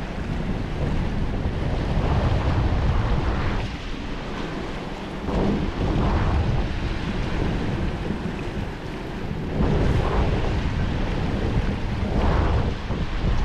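Gusty wind buffeting the microphone: a heavy low rumble that swells and eases every few seconds.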